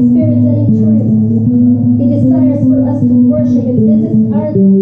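Live worship music played softly: an acoustic guitar strummed over long held chords, moving to a new chord near the end.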